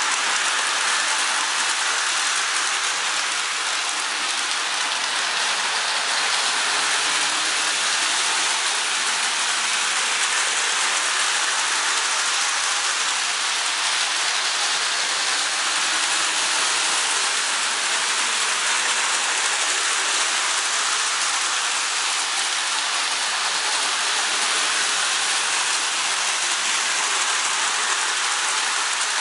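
Marx Santa Fe toy train running steadily around its track, its motor and wheels on the metal rails giving an even, hiss-like rattle.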